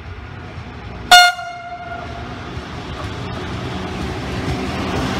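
Train horn giving one short, sharp blast about a second in, followed by the rumble of an approaching train that grows steadily louder.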